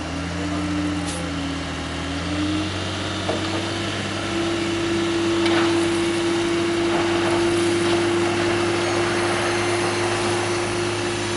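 Dump truck's diesel engine held at raised revs to drive the hydraulic hoist as the bed tips up. The steady engine note climbs a little a few seconds in, and the load of rock starts sliding and pouring out the back.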